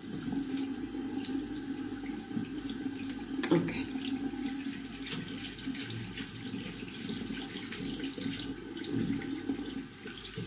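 Bathroom tap running steadily, water splashing into the sink as a hair mask is rinsed out of the hair under it. A short knock about three and a half seconds in.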